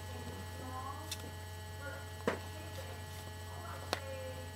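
A low steady electrical hum, with faint voices in the background and three sharp clicks, about a second, two and a quarter seconds and four seconds in, as a doll's hair is handled close to the microphone.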